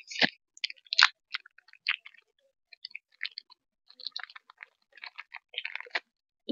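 Crinkly plastic wrapper being peeled off a frozen homemade ice cream bar: irregular crackles and rustles with short pauses between them.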